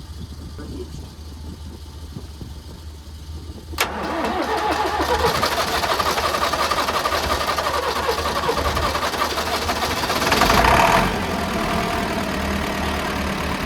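Old David Brown tractor engine cranked straight at the starter on a boost after sitting all winter. A sharp click about four seconds in, then it catches and runs. It gets louder for about a second, then settles to a steady idle.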